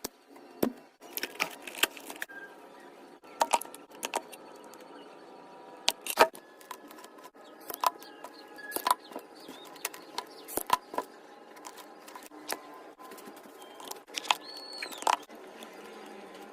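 Irregular sharp clicks and crackles, some much louder than others, over a faint steady hum, with a brief whistle-like tone that rises and falls near the end.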